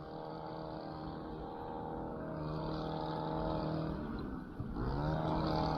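Small boat motor running steadily with a hum, easing off and speeding back up, its pitch rising again, about four and a half seconds in.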